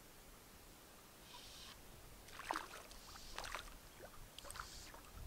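A hooked fish splashing at the lake surface as it is played on a fly rod: a few short, irregular splashes, starting about a second in.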